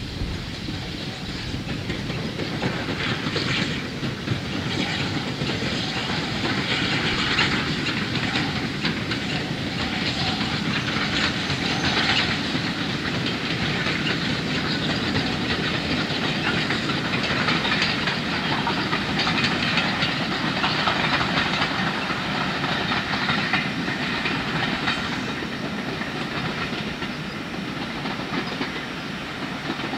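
Q class 0-6-0 steam locomotive No. 30541 passing with its train of coaches: steam and exhaust hiss with the wheels running over the rails, growing louder over the first few seconds and easing off slightly near the end as the train moves away.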